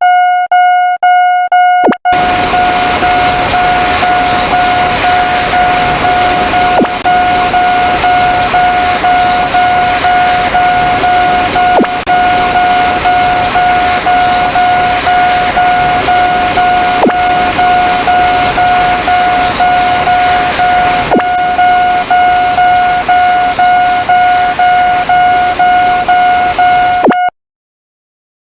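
Railroad crossing warning bell ringing in an even electronic ding, about two strokes a second. From about two seconds in, a passing train adds a steady rushing noise under it, and both cut off abruptly near the end.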